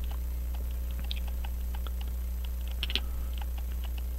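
Light, irregular clicks and taps of metal as a brass pocket-watch movement is shifted and repositioned in a metal movement holder, with a slightly louder click about three seconds in, over a steady low hum.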